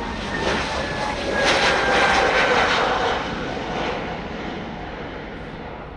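Jet engines of a departing Airbus A320neo passing, swelling to their loudest about two seconds in and then fading, with a whine that drops slightly in pitch as it goes by.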